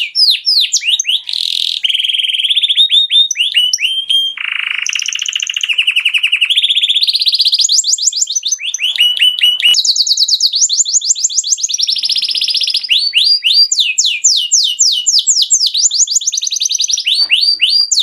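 Male canary singing a long unbroken song of rapid trills, each phrase a quick run of one repeated note, switching to a new phrase every second or two.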